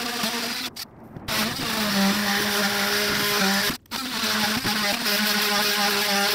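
Cordless power tool running as it scores through the fiberglass laminate of a boat transom, a steady motor drone with a buzzing edge. The trigger is eased off briefly about a second in and again near four seconds, and the pitch sags and climbs back each time.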